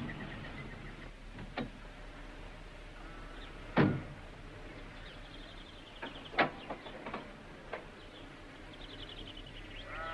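Several sharp knocks, the loudest about four seconds in and a quick cluster a little over six seconds in, with faint high chirping trills in the background twice.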